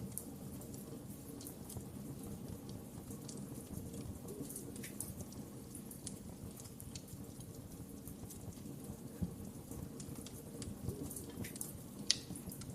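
Wood fire crackling in a fireplace: scattered small pops and snaps over a steady low rumble, with a couple of sharper pops near the end.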